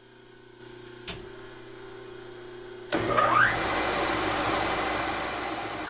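Milling machine spindle motor starting and running with a steady hum, a click about a second in, then about three seconds in a much louder rough grinding noise as the roughing end mill begins cutting into the part.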